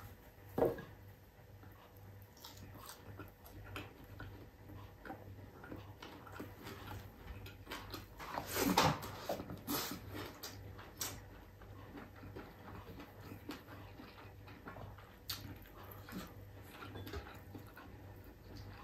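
A person eating fried round scad (galunggong) and rice by hand: chewing with scattered mouth smacks and clicks, a sharp one just under a second in and a louder burst about nine seconds in.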